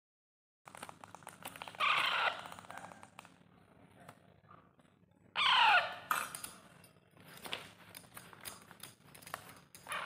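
Hand-reared green parakeet chicks giving harsh begging squawks while being spoon-fed. One call comes about two seconds in and a louder run of falling calls at about five and a half seconds, with scattered light clicks in between.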